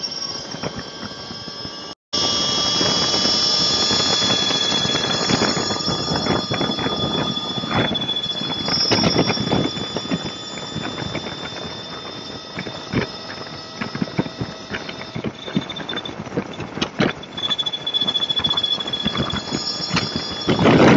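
Motorcycle at freeway speed: road and wind noise with a steady high-pitched whine and frequent irregular knocks and thumps. The sound cuts out completely for a moment about two seconds in.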